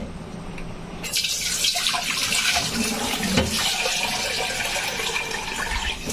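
Water pouring into a pot of fried, spiced taro pieces, starting about a second in and running steadily. It is being added after the frying-down (koshano) stage.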